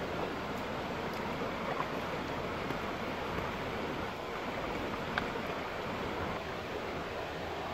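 Steady rush of a shallow stream flowing over stones, with a few faint crackles from a small wood fire burning under a clay pot.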